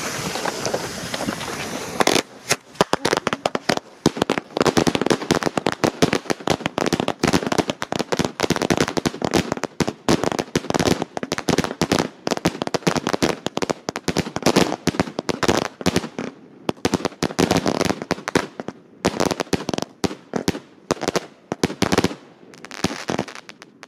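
Consumer aerial fireworks, a multi-shot cake, firing a rapid barrage of shots and crackling bursts that runs for about twenty seconds and thins out near the end. It opens with a couple of seconds of steady hiss from burning ground fountains.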